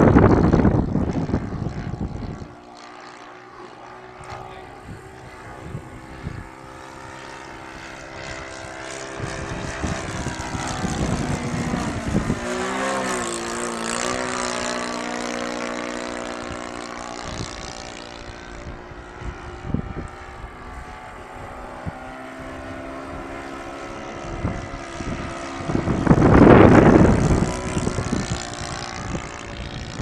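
Propeller-driven model airplane's engine droning overhead, louder and with its pitch bending as it passes near about halfway through. Gusts of wind buffet the microphone at the start and again near the end, briefly louder than the engine.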